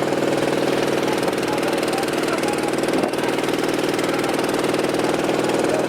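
Engine running steadily at a constant speed, with an even throb.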